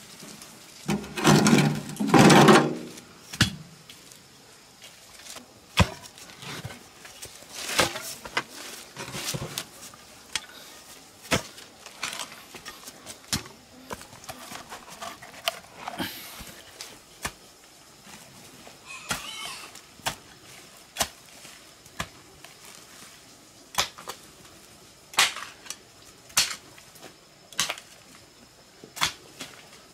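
Hoe blade chopping into packed earth: short, sharp strikes at irregular intervals, roughly one every second or two. Two louder, longer bursts come about one and two seconds in.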